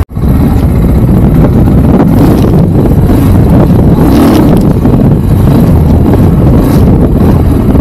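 Motorcycle on the move: loud wind buffeting the microphone over the engine and road noise, cutting in after a split-second dropout at the start.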